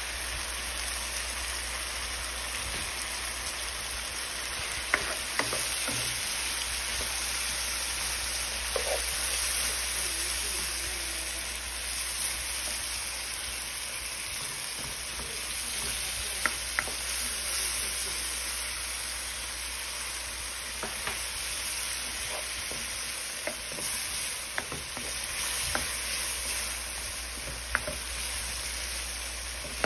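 Shrimp and scallops sizzling steadily in a hot pan, with a few sharp clicks as a spatula stirs them and knocks against the pan.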